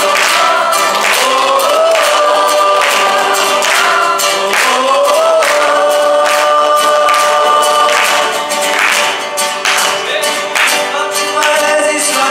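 A group of young voices singing together in unison, accompanied by strummed acoustic guitars that give a steady beat about once a second.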